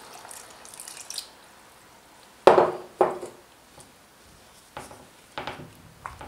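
Water poured from a jug into a pot of bulgur soup, splashing for about a second. Then a wooden spoon stirs the thick soup in a copper pot, in a series of wet sloshing strokes, the two loudest in the middle.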